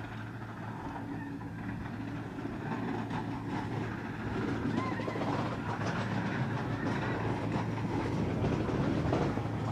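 Fixed-grip single chairlift running, its haul rope and chair rattling and clattering along the line over a steady low hum. The clatter grows louder from about four seconds in.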